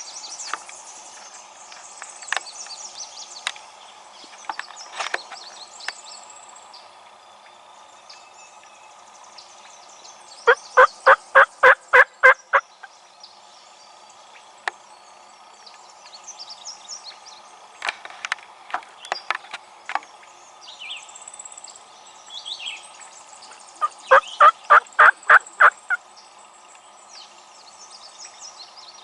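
Two loud runs of turkey yelps, about eight evenly spaced notes each, one about ten seconds in and another a few seconds before the end. Songbirds chirp faintly in between.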